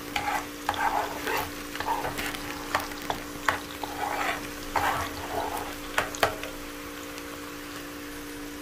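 A plastic bag crinkling and rustling in irregular bursts with sharp crackles as dried shredded beef is shaken out of it into a frying pan of chopped vegetables, over light frying. The rustling stops about six and a half seconds in, leaving a steady low hum.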